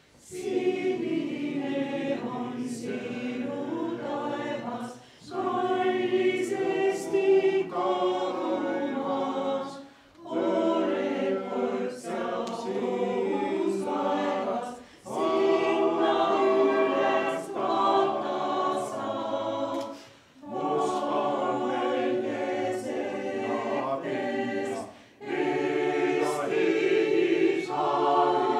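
Mixed choir of women's and men's voices singing an Estonian song unaccompanied, in phrases of about five seconds, each followed by a brief breath pause.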